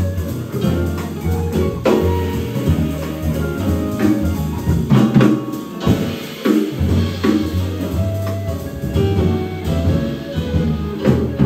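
A jazz quartet playing live: drum kit strokes and a moving low bass line under piano.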